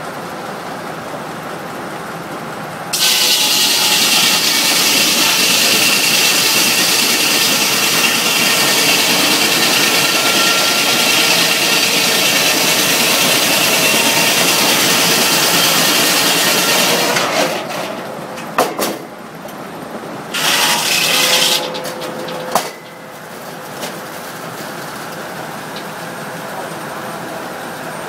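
Large circular sawmill blade cutting through a log on the carriage: a loud, even rasp that starts suddenly about three seconds in and lasts some fourteen seconds, with a second, shorter cut about twenty seconds in. Between and around the cuts the mill's machinery runs with a steady hum.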